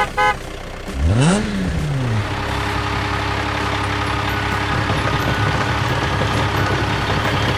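Cartoon vehicle engine sound effect: a short honk, then the engine starts with a rev that rises and falls about a second in and settles into a steady run.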